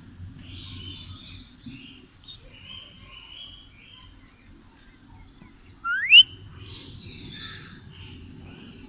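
Rose-ringed parakeet calling, with soft chirps throughout. There is a short shrill call about two seconds in and a loud, quickly rising screech about six seconds in.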